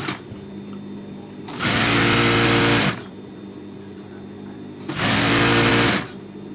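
Industrial single-needle sewing machine stitching a double-folded hem in two short runs, the first about a second and a half long and the second about a second, each speeding up and then slowing to a stop.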